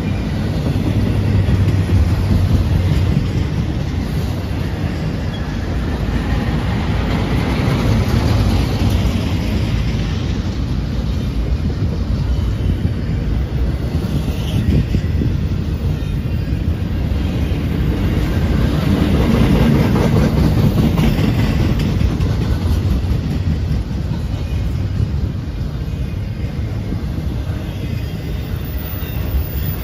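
Intermodal freight train's loaded well cars rolling past close by, their steel wheels rumbling over the rails, swelling and easing slightly as the cars go by.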